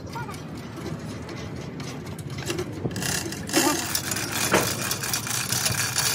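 An engine running steadily, growing louder and noisier about three seconds in, with two metallic clanks about three and a half and four and a half seconds in.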